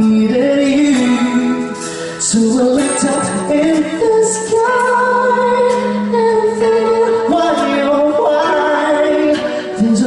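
A band playing with a woman singing the lead, holding long notes over the accompaniment.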